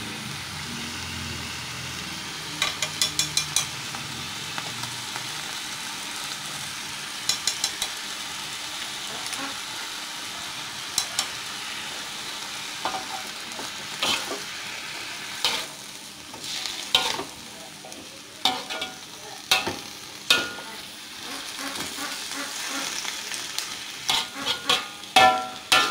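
Chinese cabbage stir-frying in a wok with a steady sizzle, while a metal spatula scrapes and taps the pan. A quick run of taps comes about three seconds in and again near eight seconds, and there are scattered louder knocks through the second half.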